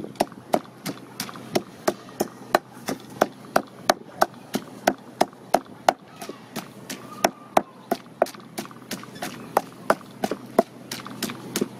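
Wooden pestle pounding a moist kroeung spice paste of lemongrass, chili and garlic in a wooden mortar: steady, evenly spaced thuds, about three a second.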